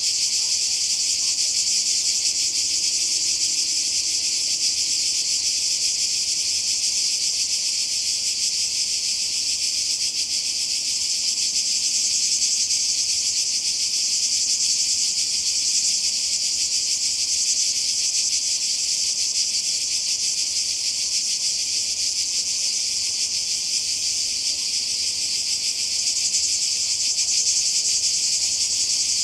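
Chorus of cicadas singing in a steady, unbroken high-pitched buzz.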